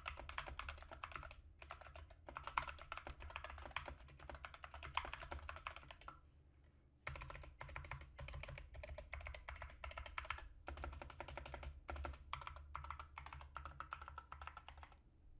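Typing sound test on an Epomaker SK61 60% mechanical keyboard with Gateron Yellow linear switches: rapid, irregular keystrokes. The typing pauses briefly about a second and a half in and stops for about a second around six seconds in.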